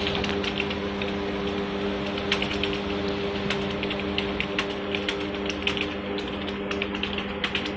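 Computer keyboard typing: quick, irregular key clicks several times a second, over a steady low hum.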